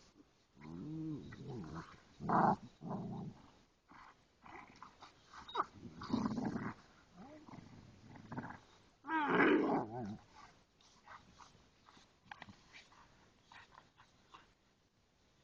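Dogs (a Rhodesian ridgeback and boxers) growling as they play-fight, in three bouts, the loudest about two-thirds of the way through; after that only faint short sounds.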